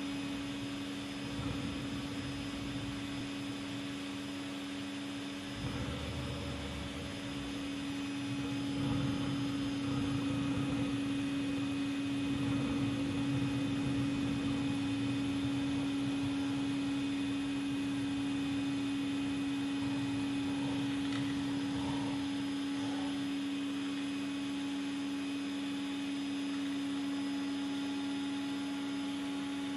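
Vacuum cleaner running steadily with a constant hum, its hose nozzle held over a small rocket stove's chimney to draw air through the fire. Irregular low rumbles come and go over it for the first twenty seconds or so.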